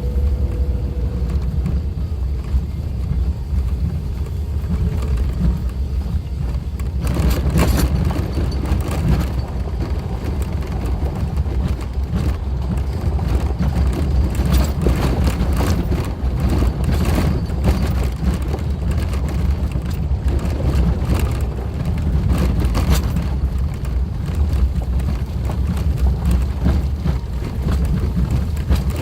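Suzuki Jimny driving on an unpaved forest road: a steady low rumble of engine and tyres, joined about seven seconds in by dense crackling and rattling.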